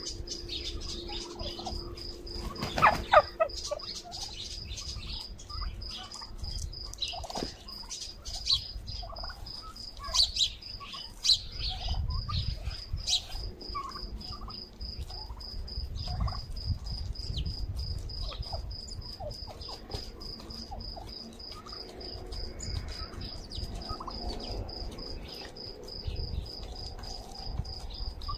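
A flock of domestic turkeys calling while feeding: one loud call about three seconds in, then scattered short calls and chirps. A steady, rapidly pulsing high insect trill runs underneath.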